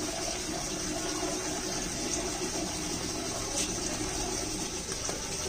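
Water running steadily, a continuous even rush.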